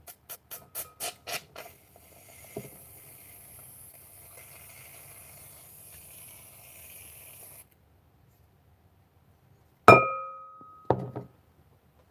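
Glass bowl knocked twice about a second apart near the end; the first knock is loud and rings on briefly. Before that come a quick run of light clicks and then several seconds of soft, steady hiss that stops suddenly.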